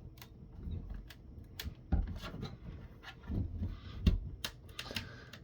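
Clicks and knocks of a plastic phone base station being handled and worked on with tools during disassembly, the loudest a knock about two seconds in.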